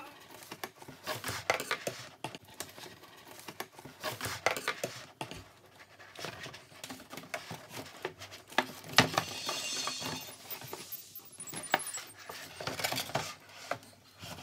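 A cardboard Play-Doh DohVinci box and its small hard plastic parts being handled as the set is unpacked: scattered clicks, clacks and light rattles, with a brief squeak about two-thirds of the way through.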